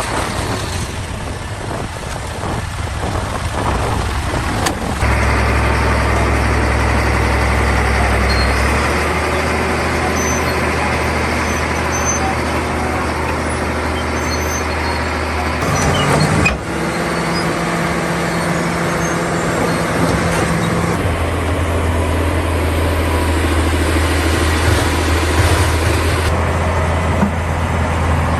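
Heavy diesel machinery engines running steadily under load. The engine note jumps abruptly to a different pitch about 5 seconds in, again about 16 seconds in, and about 21 seconds in.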